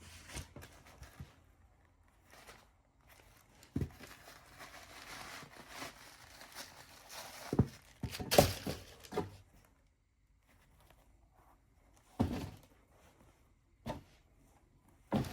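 Unboxing handling: tissue paper rustling and crinkling, with several dull knocks as the shoe box and shoes are handled, the loudest about eight seconds in.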